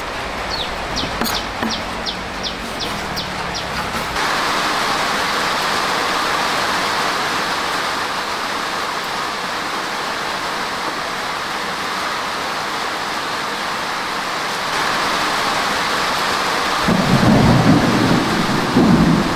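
Heavy rain falling steadily, with a low rumble of thunder near the end. In the first few seconds there is a quick run of about three high ticks a second.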